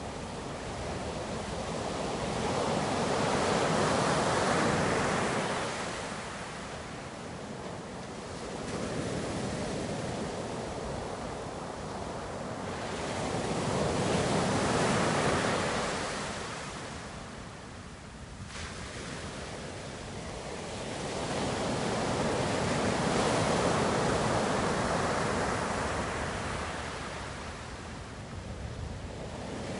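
Ocean surf washing ashore, the continuous rush swelling and ebbing in three slow surges about ten seconds apart.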